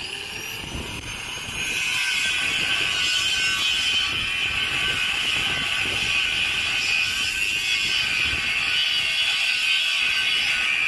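Corded angle grinder with a cut-off disc cutting through a rusty steel pipe. For about the first second and a half the grinder is quieter and its whine rises in pitch. It then bites back into the steel with a loud, steady cutting screech.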